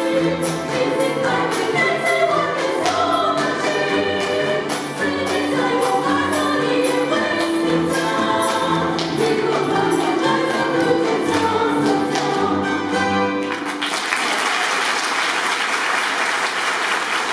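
Ensemble of banduras plucked and strummed together with voices singing, playing the closing bars of a piece. The music ends about 14 seconds in and audience applause follows.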